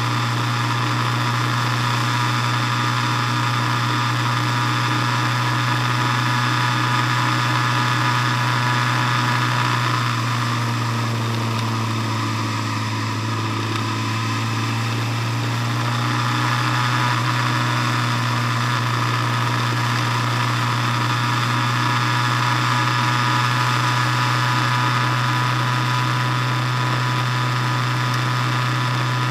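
Vehicle engine running steadily at cruising speed, a constant drone with a whine above it. The pitch sags slightly about eleven seconds in and comes back up a few seconds later.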